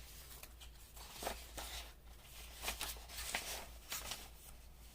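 Paper being sorted through by hand: quiet rustling with a few brief crisp clicks and taps.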